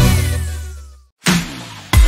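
Electronic intro jingle fading out on a single falling tone, then a moment of silence about a second in and a short hit that dies away, before loud upbeat music kicks in at the very end.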